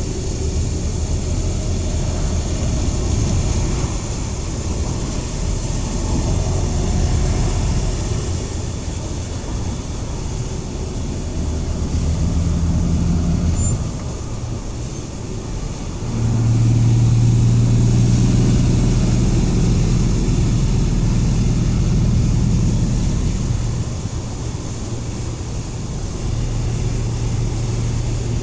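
1984 Dodge van engine and road noise while driving, a steady low drone that grows louder about halfway through, holds for about eight seconds, then eases back. The owner suspects the engine of misfiring at wide-open throttle.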